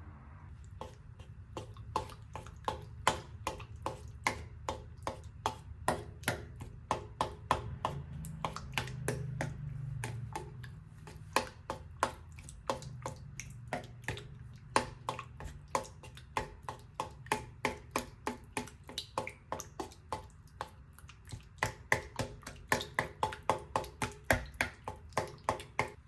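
A long run of sharp, irregular clicks or taps, about two to three a second, over a low steady hum.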